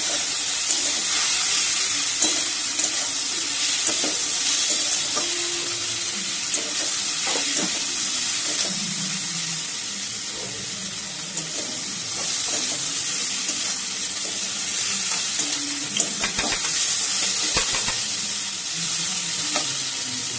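Sliced onions, tomatoes and green chillies sizzling in hot oil in an aluminium kadai while a metal spatula stirs and scrapes them around the pan, with a few sharper knocks of the spatula on the pan late on.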